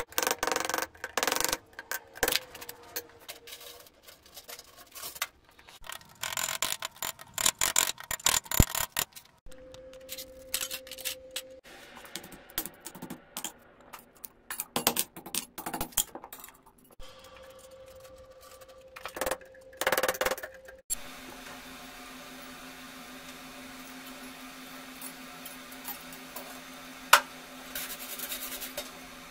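Hand hammer striking a red-hot iron bar on a steel anvil as a scroll is forged over the horn, blows coming thick and fast at first, then in sparser groups. After about twenty seconds the hammering stops and a steady hum takes over, with one sharp click near the end.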